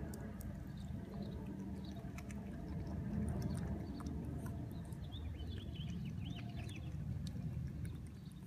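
Pet rabbit chewing a strawberry, with small quick wet clicks of its nibbling over a low steady rumble. A few faint high chirps come in about five to seven seconds in.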